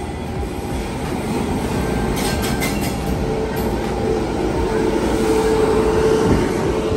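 A train rolling along a station platform: a rumble that grows louder, joined about three seconds in by a steady squeal that peaks near the end.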